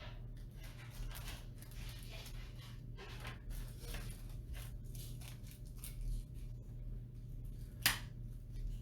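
Faint rustling and light clicks of hands sorting through small bags of PC case screws and their packaging, with one sharper click near the end, over a steady low electrical hum.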